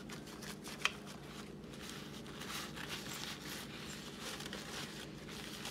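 Soft, irregular rustling and rubbing of a paper towel as it dabs powdered rooting hormone onto cut prickly pear pads, with one small click a little under a second in. A faint steady hum runs underneath.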